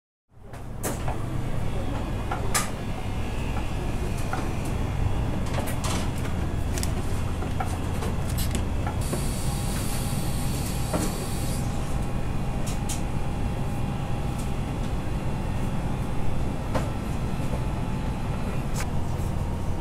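Steady low hum of running machinery, with scattered clicks and knocks of things being handled. A hiss lasts about two seconds near the middle.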